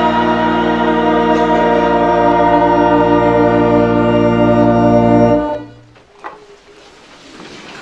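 Organ holding the closing chord of a congregational hymn, a steady sustained chord that cuts off about five and a half seconds in, leaving quiet room noise.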